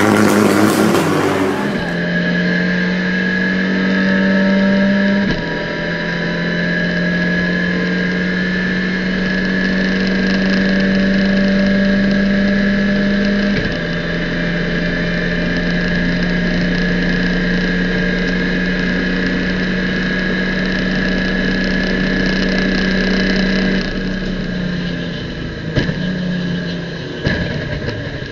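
Briefly music, then the in-car sound of an Abarth 500 race car's turbocharged four-cylinder running hard at speed. Its steady engine note steps down in pitch a few times. Near the end the note falls and breaks up as the car brakes and shifts down through the gears.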